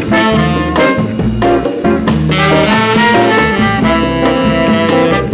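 Upbeat jazz-swing outro music with horns over a steady beat.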